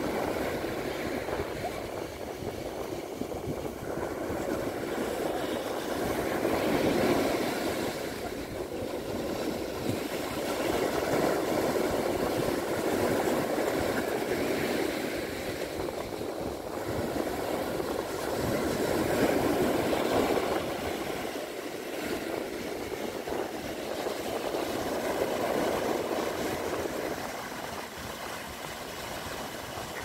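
Sea surf: small waves breaking and washing up a coarse-sand beach, the rush swelling and easing every several seconds.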